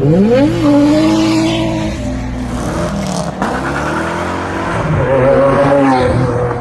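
Holden VN Commodore's 5-litre V8 revving: it climbs quickly at the start and holds high, drops away slowly, then climbs again about five seconds in and eases off near the end.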